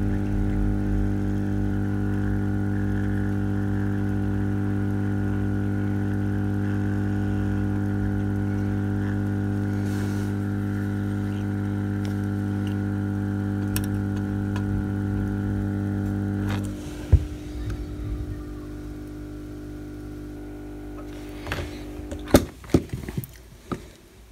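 Hot air rework station blowing onto a TV mainboard chip, a steady machine hum with several pitched lines, while a small chip, the reprogrammed EEPROM, is reflowed back onto the board. The hum cuts off about two-thirds of the way through, followed by a few sharp clicks and taps.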